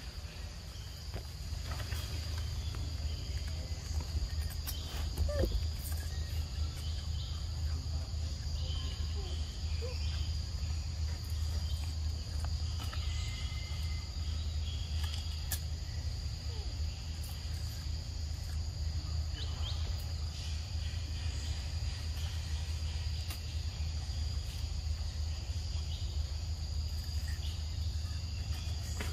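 Insects chirring in a steady high-pitched drone, over a constant low rumble, with a few faint scattered clicks and rustles.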